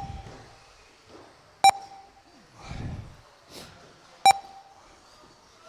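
Short electronic beeps from an RC race lap-timing system as cars cross the line: three sharp, single-pitched beeps, at the start, then about a second and a half later, then about two and a half seconds after that. A soft low rumble comes between the second and third beeps.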